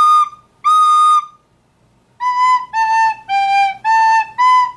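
Plastic soprano recorder played: two held notes, a pause of about a second, then a phrase of separate notes stepping down and back up again.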